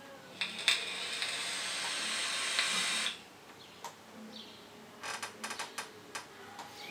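A long draw on a Vape Envii Terra rebuildable tank atomizer with its airflow fully open: a steady airy hiss lasting about two and a half seconds, starting with a click. Near the end come a few faint clicks.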